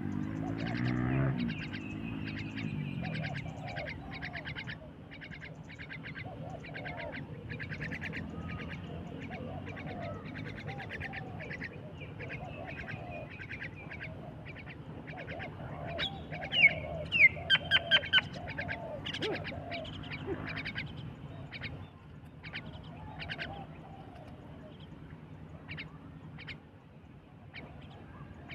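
A flock of mynas chattering, with many short chirps and whistled calls, and a few loud falling whistles about two-thirds of the way through. A dove's low cooing is heard in the first few seconds.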